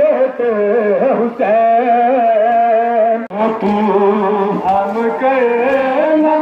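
A male voice chanting a noha, the mourning lament of Muharram, in long held, wavering melodic lines, with a brief break about three seconds in.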